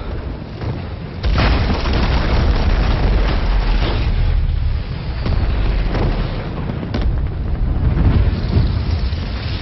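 A huge explosion bursts in about a second in: the wildfire blast of the battle scene. It carries on as a deep, continuous rumbling roar, with sharper cracks every second or two.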